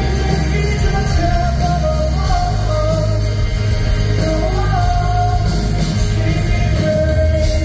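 Live rock band playing: a sung melody over electric bass, electric guitar and acoustic guitar, with a heavy bass low end, heard loud through the hall from the audience.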